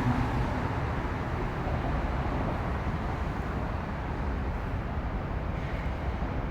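Steady rumble and rail noise of a westbound CSX freight train rolling past, with a falling tone from the locomotive dying away right at the start.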